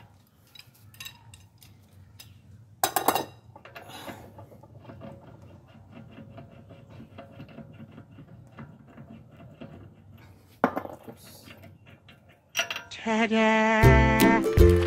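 Ratchet wrench with an Allen bit clicking in a fast, even run of small metallic clicks as the axle collar bolt is backed out of the wheel hub, with a couple of louder metal clinks. Background music with a beat comes in near the end.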